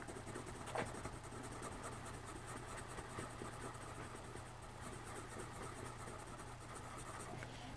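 Yellow coloured pencil scratching steadily on drawing-pad paper in small back-and-forth strokes, filling in a little circle, with a short tap about a second in.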